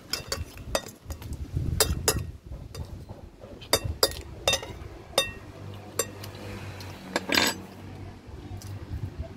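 Metal spoon clinking and scraping against a ceramic bowl while scooping papaya salad: about a dozen irregular sharp clinks, some ringing briefly, with a longer clatter about seven seconds in.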